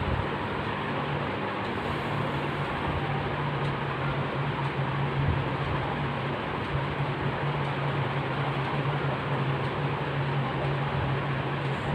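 Steady hiss-like noise with a constant low hum underneath.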